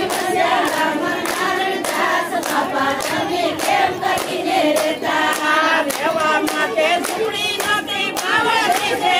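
A group of women singing together, clapping their hands in a steady beat of about two claps a second.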